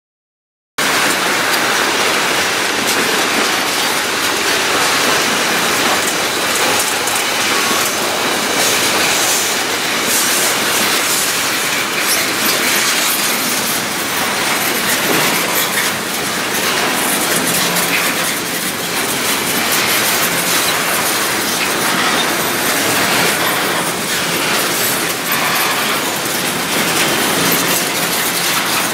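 Freight train's tank cars and double-stack container well cars rolling past at close range: a steady loud rolling noise with a continuous run of wheel clicks. The sound starts abruptly about a second in.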